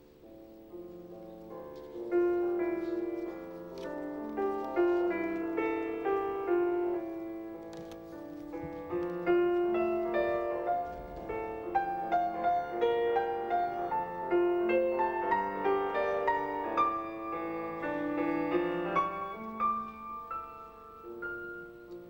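Piano music accompanying the dance: a flowing line of notes over chords. It is soft at first and fills out about two seconds in.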